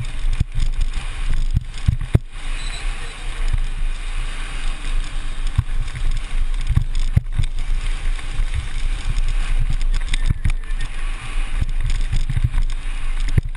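Wind rushing and buffeting over a helmet-mounted GoPro as a BMX bike races along a dirt track, with tyre noise and frequent sharp knocks from bumps and the bike rattling.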